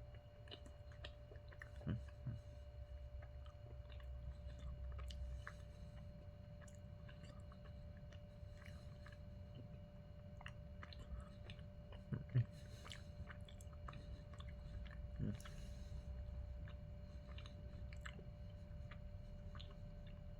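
A person chewing a Snickers pecan bar of caramel, nougat and pecans: soft, sticky, chewy mouth sounds with many small clicks. A few dull low knocks sound about two seconds in, around twelve seconds and around fifteen seconds.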